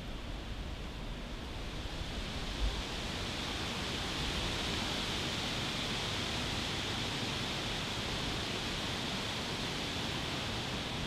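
Steady rushing of wind through leafy trees, swelling about three seconds in and then holding, with one low bump on the microphone shortly before.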